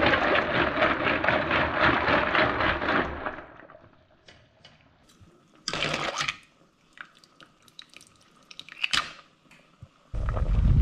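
A pot of cockles and clams at a rolling boil, bubbling hard for the first three seconds before going quieter. Scattered clicks follow, with a short clatter about six seconds in as tongs stir the shells, and a low rumble starts near the end.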